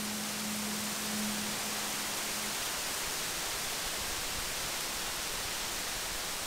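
A Japanese end-blown bamboo flute holds one low, steady note that fades out about two and a half seconds in, leaving only a steady hiss.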